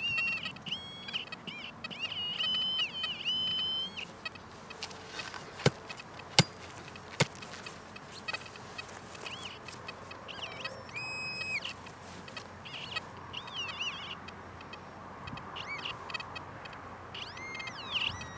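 Digging in dry, stony field soil with a hand digging tool, with three sharp knocks of the blade striking stones or clods about six to seven seconds in. Through much of it a series of high held tones sounds, each stepping up and down in pitch.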